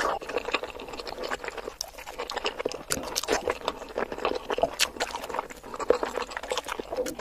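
Close-miked chewing of sauce-coated boiled eggs: a steady run of soft wet mouth clicks and smacks.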